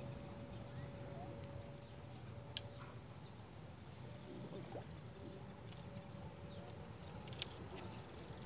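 Quiet outdoor ambience with birds calling, including a quick run of short falling chirps about three seconds in, over a steady high insect whine and a faint low rumble. Two sharp clicks, about 2.5 s and 7.5 s in.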